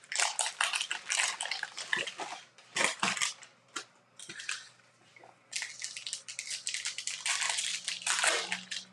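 Baseball card pack wrapper crinkling and tearing, with cards rustling as they are handled, in quick runs of crackles. There is a short lull about four seconds in.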